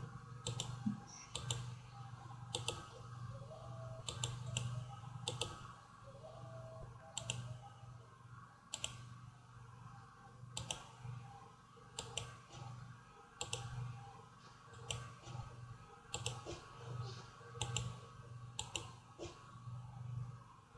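Computer mouse clicking: single and double clicks at irregular intervals, roughly one a second, over a faint steady low hum.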